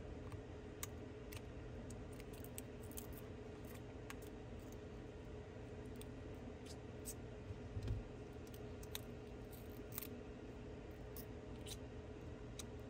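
Hobby-knife blade scraping and chipping cracked back glass off an iPhone 12 Pro Max, heard as irregular small scratchy clicks of steel on glass over a steady low hum. A soft thump comes about eight seconds in.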